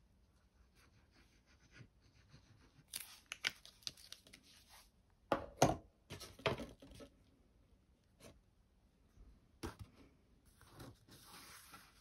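Card stock and patterned paper being handled: crackling, scraping and sharp taps in clusters, loudest in the middle, then a longer rustle near the end as the card box is picked up.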